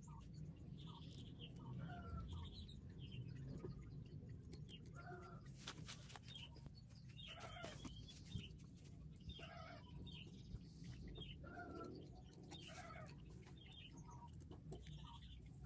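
Faint short bird calls, repeated every second or so, over a steady low background noise.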